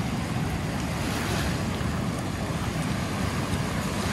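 Small river waves lapping and breaking in the shallows, with wind buffeting the microphone as a steady low rumble.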